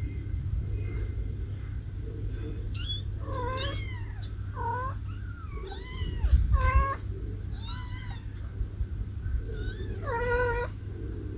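Kittens meowing in a run of about eight high-pitched calls, starting about three seconds in. Some calls bend up and down, and the last, near the end, is a longer call, all over a steady low rumble.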